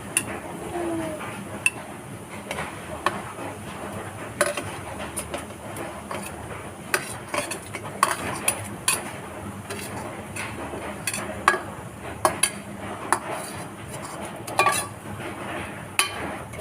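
Metal spoon stirring in a cooking pot, with irregular clinks and knocks against the pot over a steady low hiss.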